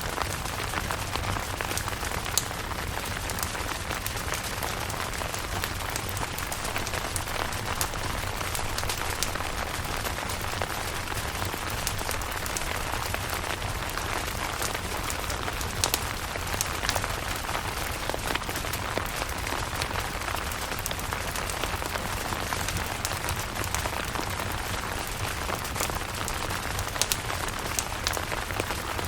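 Steady rain pattering on a camping tent, with sharp taps of single drops scattered throughout.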